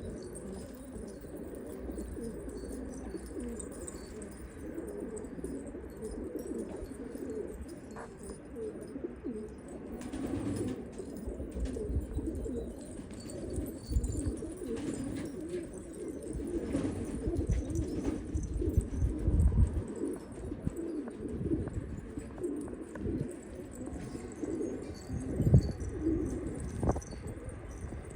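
Domestic pigeons cooing: many overlapping coos from a group of birds, continuous throughout. There are occasional low thumps, the loudest about 25 seconds in.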